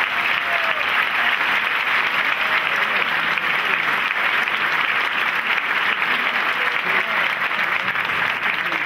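Audience applause: many people clapping in a dense, steady patter after a speech ends.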